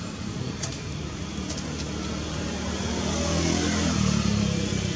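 A motor vehicle's engine running as it passes, a low hum that grows louder about three seconds in.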